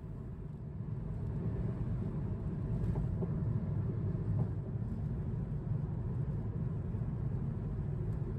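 Steady low rumble of road and engine noise inside a car cruising at freeway speed.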